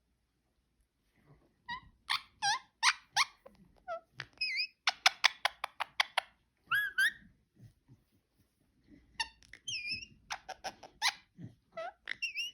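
Pet parakeet chattering: short squeaky chirps, a fast rattling run of chirps about five seconds in, and a few short warbled whistles, starting after a second or two of quiet.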